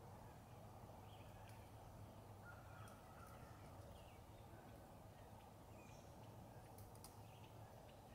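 Near silence: faint steady outdoor ambience, with a few faint short chirps and scattered faint clicks.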